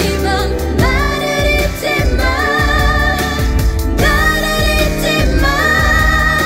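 A female singer sings a pop song live over instrumental accompaniment, holding a long note near the end.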